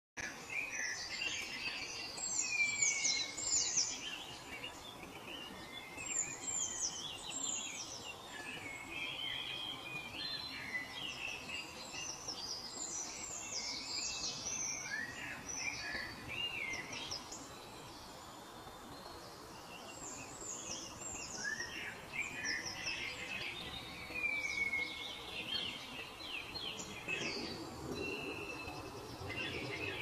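A chorus of several songbirds singing and chirping, with many quick, high, overlapping notes, over a steady background hiss. The birds go quieter for a few seconds past the middle, then pick up again.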